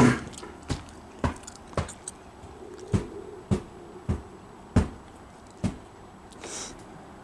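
A series of sharp knocks, about nine in six seconds at an uneven pace, followed by a brief hiss near the end.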